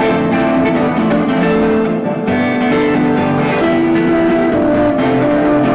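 Instrumental guitar music, with notes picked one after another over sustained tones.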